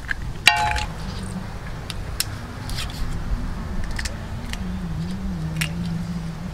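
Knife tapping and cracking the shells of boiled balut duck eggs: a sharp knock with a short metallic ring about half a second in, then scattered small clicks of shell. A steady low hum that wavers in pitch runs underneath.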